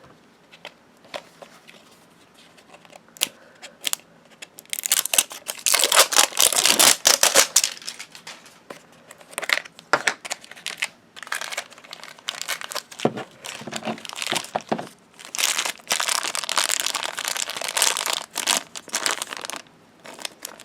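Small plastic packaging bags being crinkled and torn open by hand. Scattered light clicks at first, then bursts of crinkling that are loudest about five to eight seconds in and again near the end.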